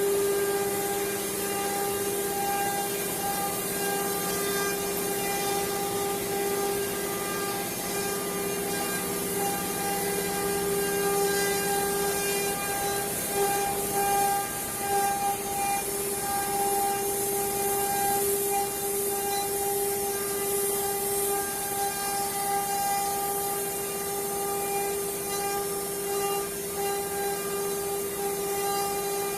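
CNC carving machine's router spindle running, a steady high whine with the hiss of the cutter working the material.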